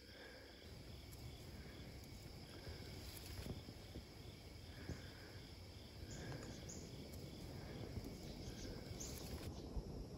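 Insects calling in pine woods, faint: a steady high buzz with a regular pulsing chirp over it, and a low rumble underneath.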